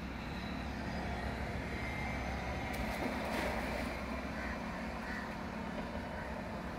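Steady drone of a small engine running continuously, a little louder about halfway through.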